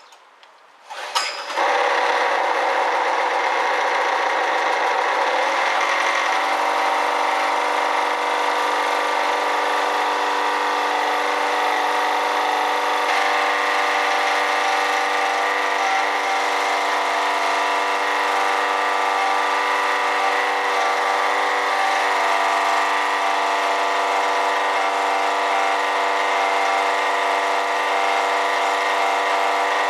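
Honda EB1500X generator starting up about a second in, then running steadily, its GX140 engine settling into an even pitch after a few seconds. The unit is noisy, which the owner takes for a bad bearing in the alternator.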